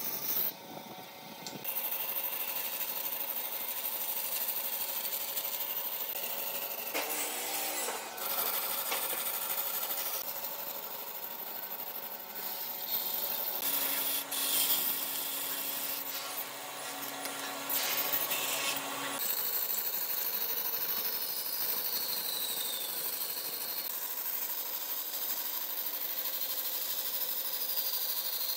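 Power tools working wood, in several stretches that change abruptly from one to the next, with a steady motor tone for about five seconds past the middle.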